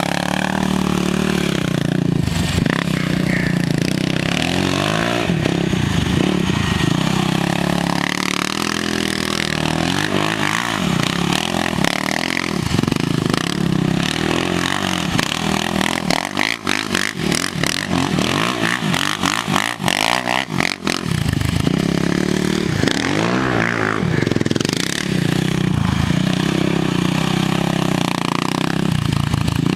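Suzuki LTR 450 sport quad's single-cylinder four-stroke engine revving up and down again and again as the quad spins donuts on dirt. Around the middle the engine drops for a few seconds to a low, choppy run before revving up again.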